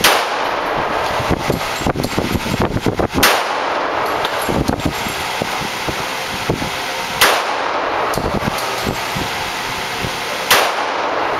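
Four single shots from a .45-calibre Glock pistol, one every three to four seconds, each a sharp crack that rings on briefly in the range's enclosed lane.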